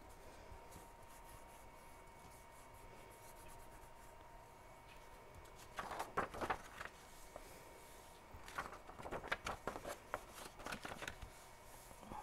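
Paper rustling and crackling as a printed book page is lifted, folded and laid flat on a cutting mat, in two spells: a short one about six seconds in and a longer one from about eight and a half to eleven seconds.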